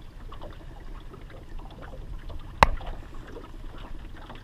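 Water lapping against the hull of a small boat moving slowly, with a single sharp knock a little past halfway.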